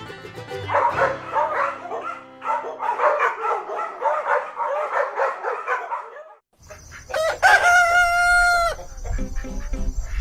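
Chickens clucking in a dense run of short calls, then after a brief break a rooster crowing once, a single long held crow.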